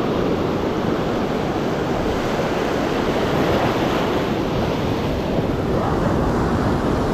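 Ocean surf breaking and washing up a sandy beach in a steady rush.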